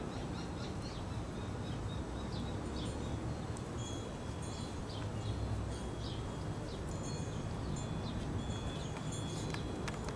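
Outdoor ambience: a steady low background hum, with short high chirps and a few thin, high ringing tones scattered throughout, like small birds and a wind chime.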